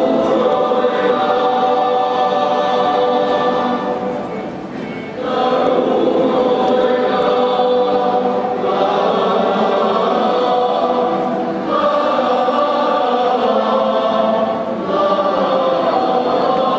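Men's choir singing in long held phrases of about three seconds each, with short breaks between phrases.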